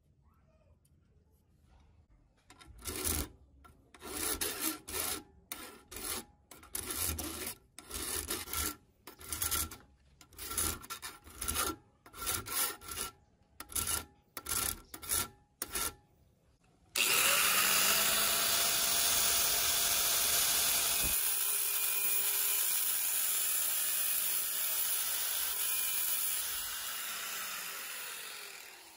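A hand file rasps across the rusty steel handle of a cable-tie tensioning tool held in a vise, in short strokes about twice a second. About halfway through, a power tool motor starts suddenly and runs with a steady loud whirr, tailing off near the end.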